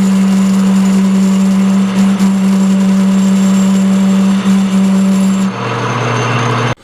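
Metal lathe running under power, a steady hum with hiss as it turns a 1018 steel bar. About five and a half seconds in the tone shifts, then the sound cuts off abruptly near the end.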